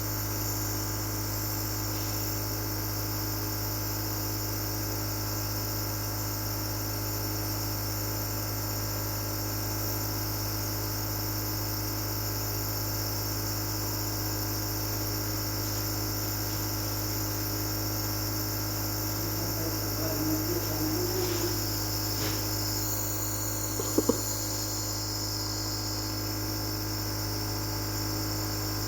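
Nebulizer running with a steady electric hum and a hiss above it. About two-thirds in a faint wavering sound rises briefly in the background, followed shortly by a short sharp knock.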